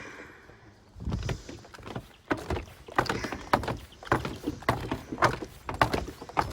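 Snowshoes crunching and scraping over snow-covered ice, their spikes catching in the cracks. The steps start about a second in and come irregularly, roughly two or three a second.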